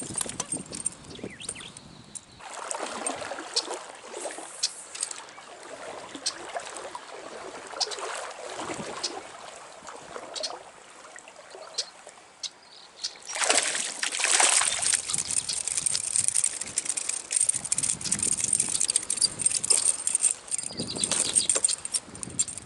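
Trout stream trickling, with splashing and sloshing in the water as a small brown trout is played and brought in; the loudest splashing comes a little past halfway.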